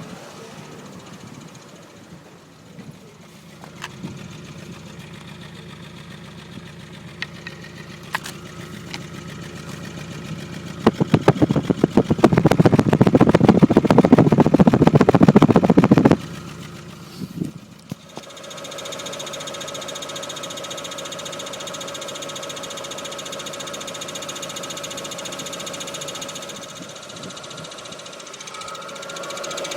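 Golf Mk4 GTI's 1.8-litre turbocharged four-cylinder engine idling, heard from underneath the car, with a constant put-put that the owner suspects is a loose pipe or an exhaust fault. About eleven seconds in, a loud, rapid rattle starts and lasts about five seconds, then the idle carries on steadily.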